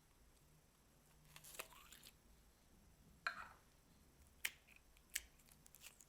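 Slime being handled by hand: a few faint sticky clicks and small wet pops, scattered and irregular, the sharpest about three, four and a half, and five seconds in.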